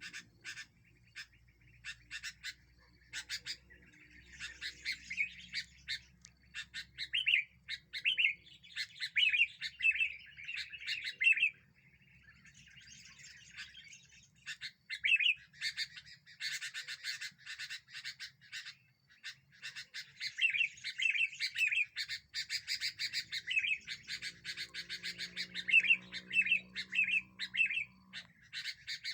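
Sooty-headed bulbul (kutilang) singing and calling in lively bouts of quick, bubbly chirped phrases and chatter, with short pauses between bouts.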